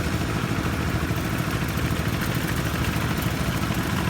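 A small engine running steadily at an even pitch, a constant low drone with no change in speed.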